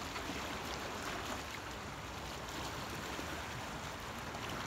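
Small waves washing steadily against shoreline rocks.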